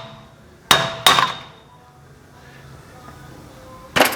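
Hammer blows on the steel wheel bearing and hub, each with a short metallic ring: two strikes in quick succession about a second in, a pause, then one more strike near the end.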